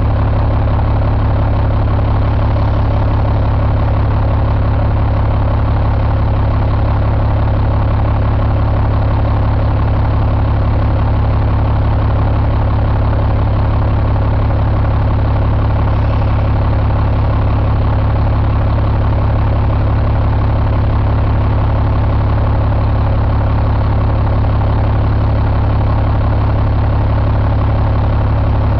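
2001 Cummins ISM inline-six diesel engine idling steadily, with an even deep rumble.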